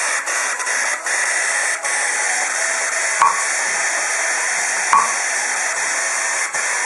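Transistor-generated white noise: a steady, full hiss broken by a few very brief dropouts, with two short beeps about three and five seconds in.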